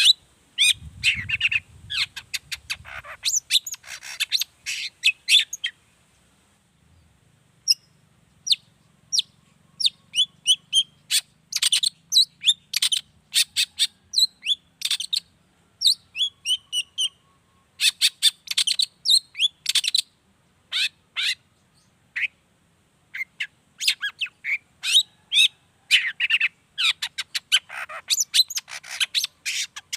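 Long-tailed shrike (cendet) singing: rapid runs of short, sharp, high chattering notes, broken by a brief pause about six seconds in.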